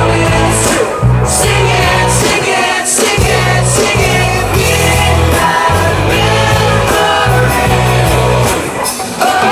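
A live pop-rock band playing with lead vocals singing, over a heavy, pulsing bass line and drums with cymbals.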